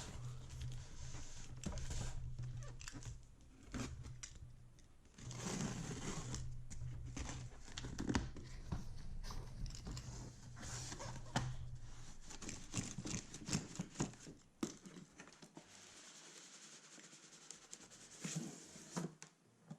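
Cardboard retail box being opened from the top by hand: tape tearing, cardboard flaps and packaging crinkling, with many sharp handling clicks and knocks. A low steady hum sits underneath until about two-thirds of the way through.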